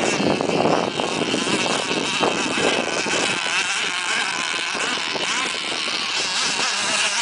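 Radio-controlled twin-hull race boat's motor running flat out with a high-pitched whine whose pitch wavers as the boat skims across the water.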